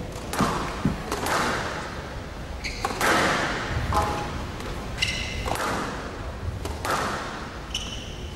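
Squash rally: the ball being struck by rackets and cracking off the court walls, one sharp echoing hit every second or so, with short high squeaks of shoes on the court floor.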